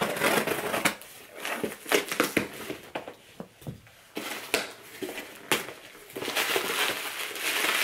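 Cardboard shipping box being pulled open by hand, with the flaps scraping and plastic packing material crinkling in irregular rustles. A couple of sharp snaps come midway, and the crinkling grows denser near the end.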